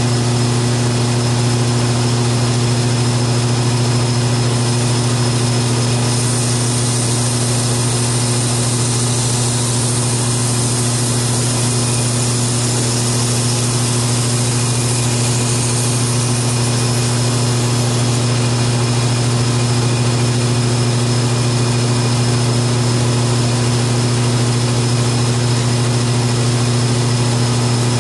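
Belt grinder running steadily with a 400-grit Trizact belt, its motor giving a strong, even hum. A knife edge is passed across the belt to sharpen it, adding a brighter high hiss from about six to sixteen seconds in.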